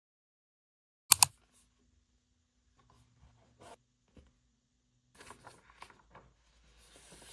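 Two sharp clicks about a second in, then faint scattered taps and rustles of small objects being handled over quiet room tone.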